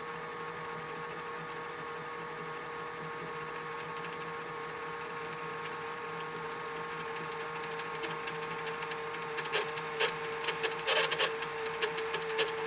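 Motor of a VHS tape rewinder running steadily with a humming whine as it rewinds a cassette. In the last few seconds irregular clicks and rattles build up, ending in a loud clunk as the tape reaches its end and the rewinder stops and pops the tape up.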